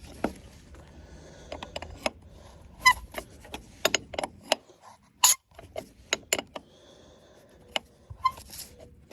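Irregular metallic clicks and clinks of a wrench working steel nuts on a threaded bolt.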